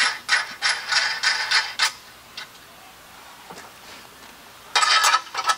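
Hand ratchet wrench worked back and forth to tighten nuts onto long steel bolts, clicking in short bursts about three a second; it stops about two seconds in, and one more quick burst of clicking comes near the end.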